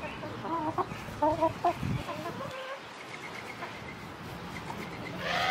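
Chickens clucking in short bursts during the first two seconds, then quieter, with a louder call right at the end.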